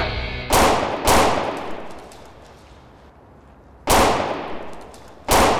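Four loud gunshots, each with a long echoing tail: two in quick succession about half a second in, and two more spaced over a second apart near the end. Background music cuts off at the first shot.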